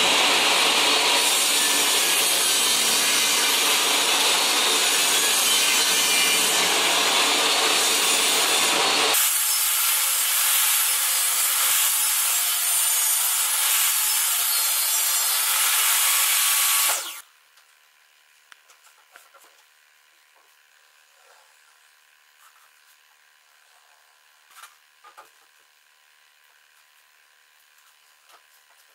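Portable table saw running with its blade cutting through the melamine-topped particleboard base of a crosscut sled as the sled is pushed through. The lower part of the sound drops out about nine seconds in, leaving a high hiss. The sound stops abruptly about seventeen seconds in, followed by faint knocks and clicks of the sled being handled.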